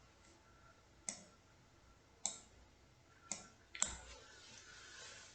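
Four sharp clicks over a faint hiss, about a second apart, the last two close together.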